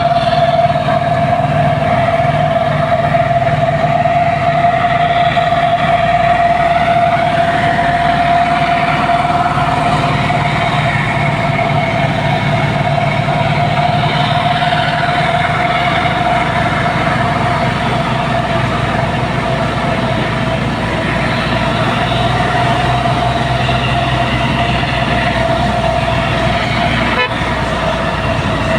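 Heavy diesel machinery running steadily: a low engine drone with a constant high whine over it.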